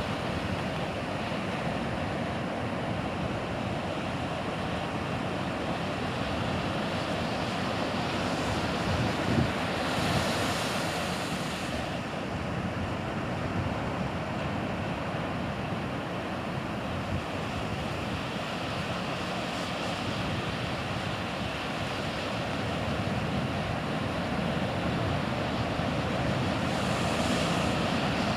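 Ocean surf washing steadily, with wind on the microphone; the hiss brightens for a couple of seconds about ten seconds in and again near the end as waves wash in.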